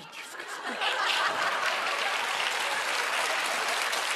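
Audience applauding, swelling over about the first second and then holding steady.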